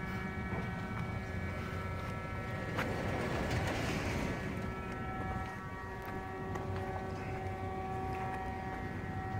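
Steady mechanical hum from a running motor: a low rumble with several held tones over it. A rush of noise swells and fades about three to four and a half seconds in.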